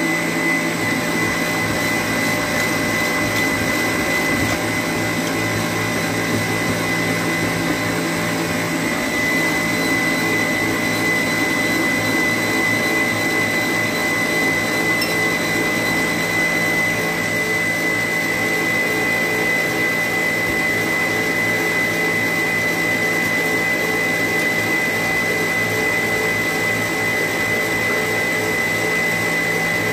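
Electric stand mixer running at a steady speed, its beater whipping a runny egg-yolk, oil and sugar mixture in a stainless steel bowl, with a constant high motor whine.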